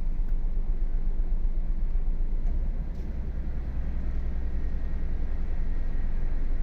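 Typhoon wind buffeting the microphone: a constant deep rumble that eases slightly about three seconds in and builds again.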